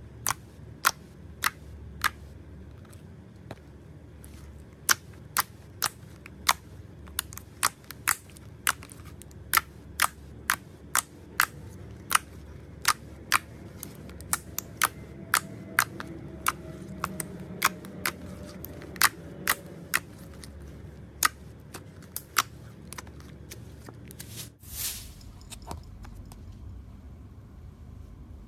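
Toy slime being squeezed and pressed, giving sharp, separate pops and crackles at an irregular pace of one to three a second.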